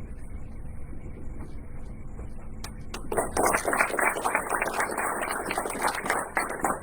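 Low room hum, then an audience breaks into applause about three seconds in, many hands clapping.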